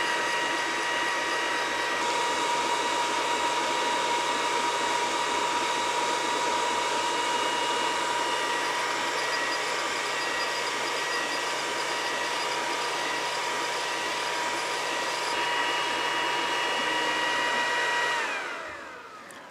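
xTool D1 Pro 20W laser engraver running while engraving: the laser head's cooling fan whirrs with a steady whine. About 18 seconds in, the whine slides down in pitch and the sound dies away as the job finishes and the fan spins down.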